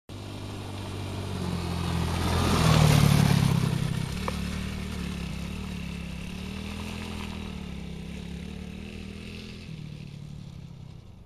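Small 110cc ATV engine, a TaoTao Infantry single-cylinder four-stroke, running as the quad comes up the gravel trail and passes, loudest about three seconds in with tyre noise over the gravel, then running on at a steady throttle and slowly fading as it moves away.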